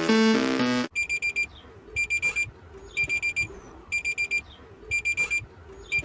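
Synth music cuts off abruptly about a second in and gives way to a digital alarm clock beeping: quick runs of four high beeps, repeating about once a second.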